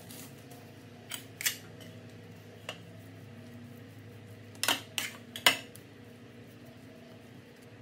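A metal spoon clinking and scraping on a plate and a wooden cutting board as cooked rice is scooped and spread onto a nori sheet: a few sharp taps, the loudest ones close together about five seconds in, over a low steady hum.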